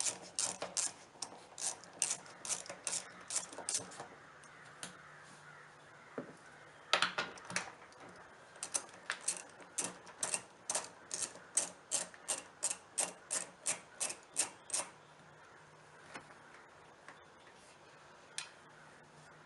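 A 10mm socket ratchet clicking in quick runs of about three clicks a second as the mirror-mounting bolts are backed out, with a louder knock partway through.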